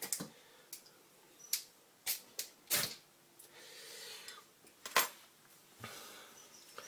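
Scattered sharp clicks and metallic clinks from handling a home-made pop-can meths stove and its pot while lighting it, with a soft rushing sound around the middle.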